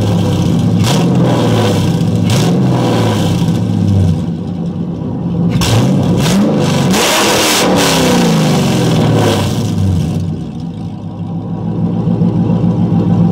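LS1 V8 engine running through a half-built exhaust, idling and revved: a few quick blips in the first seconds, then a longer rev in the middle whose pitch falls back to a steady idle.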